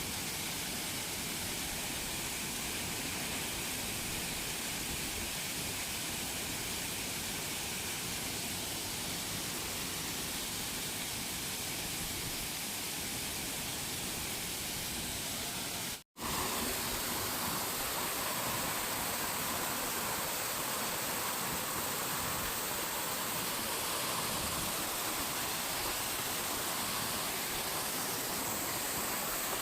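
Waterfall: a steady rush of falling water, which cuts out for an instant about halfway through.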